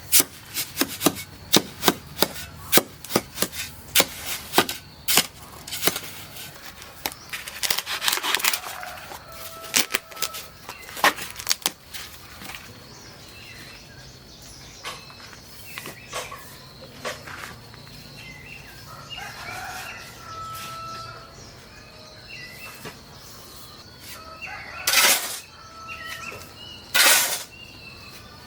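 Knife chopping food on a cutting board, about two strokes a second, which stops about twelve seconds in. Afterwards birds call now and then over a faint steady high tone, and two short bursts of noise come near the end.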